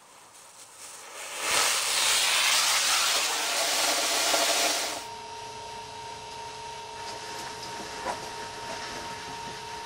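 Small rocket motor on a toy car burning with a loud, steady hiss for about three and a half seconds, stopping abruptly about five seconds in. After that a much fainter steady hum, with one sharp click near the end.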